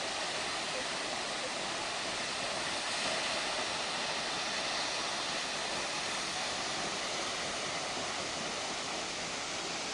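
Large waterfall roaring: a steady, even rush of falling water that never lets up.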